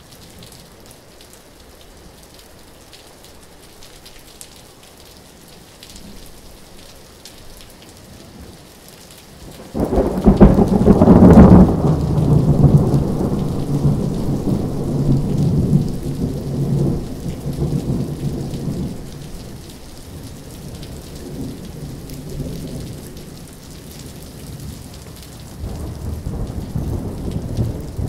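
Thunderstorm: steady rain, then about ten seconds in a sudden loud clap of thunder that rolls on for several seconds before fading. A second, softer rumble of thunder comes near the end.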